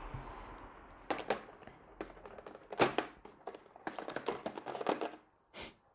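Plastic game miniatures handled and set down on a table: a string of irregular light taps and clicks, the loudest about three seconds in.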